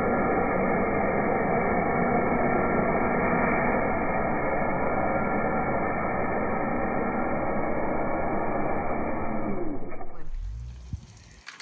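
Electric pressure washer running steadily, heard muffled with its upper range cut away, then stopping about ten seconds in.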